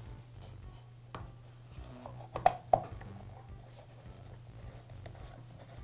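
Plastic air filter cover being handled and pressed onto a cultivator engine's filter housing, giving a few light plastic clicks, the two loudest close together about two and a half seconds in.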